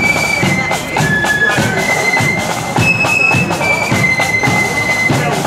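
Marching flute band playing a tune: shrill flutes in unison holding long notes that step from pitch to pitch, over steady drum beats.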